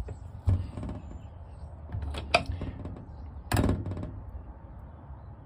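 A diesel injector pop tester worked by hand on a used Toyota 1HD-FTE injector: a few sharp knocks and clicks, with a louder short burst about three and a half seconds in, over a low steady hum. The injector is opening well below its specified pressure, a sign of weak nozzle springs.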